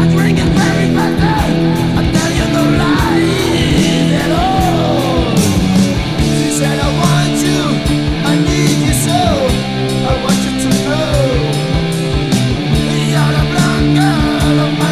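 Rock music from a full band with drums, bass and electric guitar, and a lead line bending up and down in pitch.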